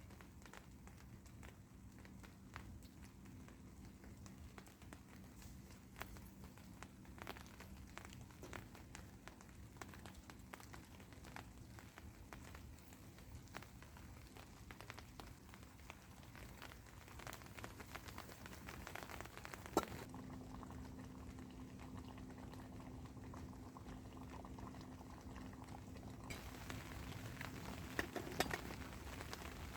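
Faint bubbling of water in a cooking pot, with many small scattered ticks and drips. A sharper click comes about twenty seconds in and a few more near the end.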